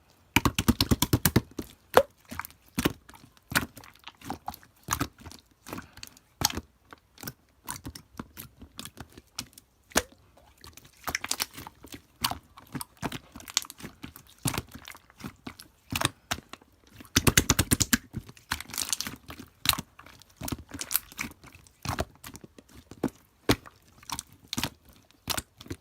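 Slime being pressed and stretched by hand, giving scattered crisp clicks and crunchy pops, with two runs of rapid crackling, one near the start and one about two-thirds of the way through.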